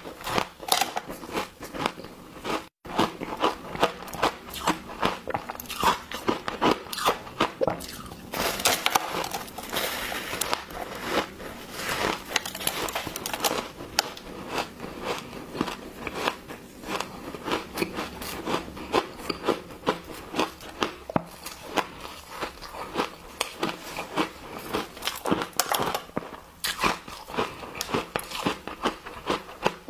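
Ice crunching close to the microphone: bites into a powder-dipped block of ice and chewing of the pieces, a dense run of sharp crunches and crackles with a brief gap about three seconds in.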